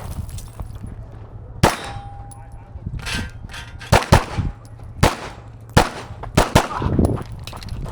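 Live pistol shots at a practical shooting stage, fired singly and in quick pairs, about eight in all.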